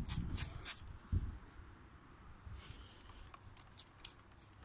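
Hand-pumped trigger spray bottle of cooking oil squirting in short, sharp hisses: a few quick squirts in the first second, then a run of quicker, fainter squirts and trigger clicks from about two and a half seconds in. A low rumble on the microphone and a thump about a second in sit beneath them.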